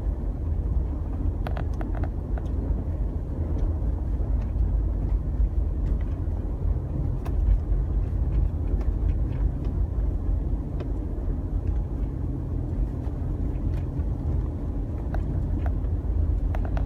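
Steady rumble of a car's engine and tyres heard from inside the cabin while driving on snowy roads, with a few faint clicks.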